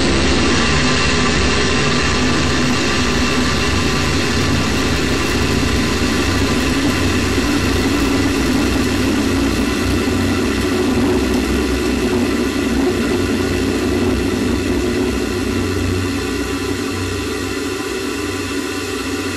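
A steady droning hum with hiss and several steady tones over it, easing a little near the end.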